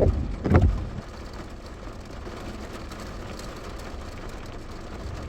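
Vehicle engine idling, a steady low rumble heard from inside the car, after two short loud sounds in the first second.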